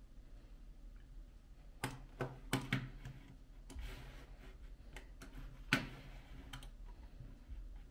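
Computer mouse clicking: a handful of short, sharp clicks at irregular spacing, starting about two seconds in, the loudest near the end, over a faint steady room hum.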